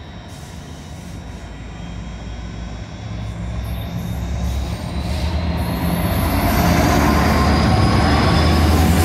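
Class 66 diesel-electric locomotive, its two-stroke V12 engine running as it hauls a container freight train, getting steadily louder as it approaches and passes close by, with the wagons rumbling behind. A thin high tone sounds faintly through the first half.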